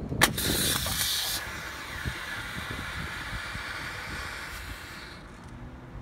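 Pull-cord igniter of a PULL START FIRE firestarter block, thawed after a week frozen in ice, going off with a sharp snap as the cord is pulled, then hissing as the block smokes. The hiss is loud for about a second, then quieter and steady, and stops about five seconds in.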